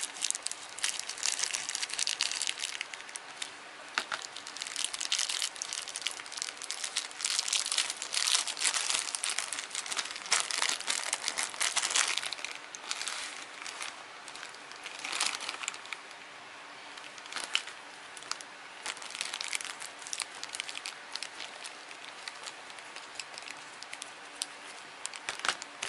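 Thin clear plastic bag crinkling and crackling irregularly as it is handled and opened by hand. The crinkling is dense for the first half, then comes in sparser, quieter handfuls.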